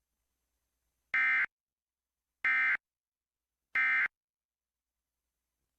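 Emergency Alert System end-of-message code: three short bursts of SAME digital data tones, each a buzzy warble, about a second apart with silence between. They mark the end of the required monthly test alert.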